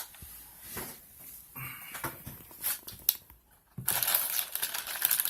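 Crinkling and rustling of items being handled, with scattered clicks, turning to loud, dense crinkling about four seconds in.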